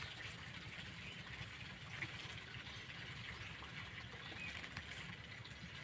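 Faint open-field ambience: a low steady rumble with scattered faint bird chirps, and light rustling of coriander plants being picked by hand.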